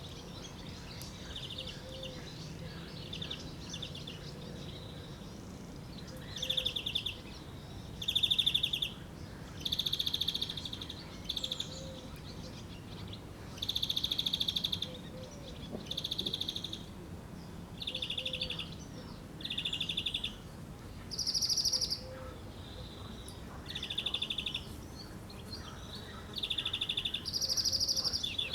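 A songbird singing a long series of short, trilled phrases, each about a second long, repeated every second or two with small changes in pitch.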